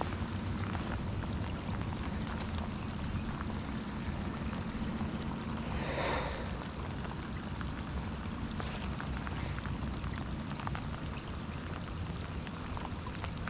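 Steady rain falling on the lake and the boat, over a steady low hum from the bow-mounted electric trolling motor. A brief whoosh comes about six seconds in.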